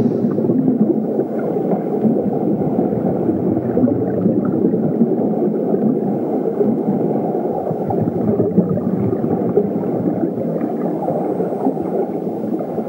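Steady low rumbling noise, even and without any tune or beat.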